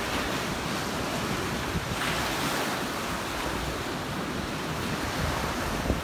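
Small surf waves breaking and washing up the sand, a steady hiss that swells about two seconds in. Some wind on the microphone.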